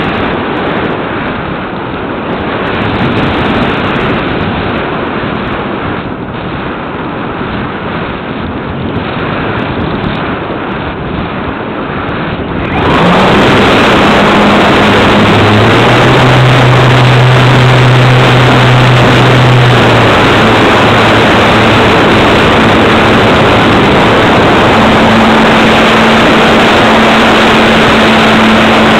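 Airflow rushing over the onboard camera of a gliding RC model glider, then about halfway through a sudden, louder, denser rush as the glider's nose propeller motor starts. A steady hum runs with it while the propeller turns.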